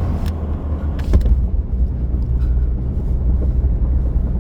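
Steady low rumble of a moving road vehicle, with a couple of brief knocks about a second in.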